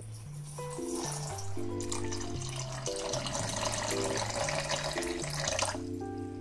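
Water poured from a glass jug into a glass bowl of dried chickpeas, splashing and bubbling as it fills; the pour starts about a second in and stops shortly before the end. Background music plays throughout.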